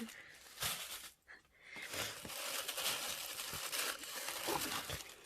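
Packaging being opened and handled as a box is unpacked: a short rustle, then continuous rustling from about two seconds in until shortly before the end.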